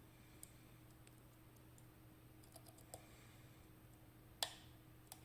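Faint, scattered small clicks of a lock pick working the pins of a KABA 14 lock's three rows of pins, with one sharper click about four and a half seconds in.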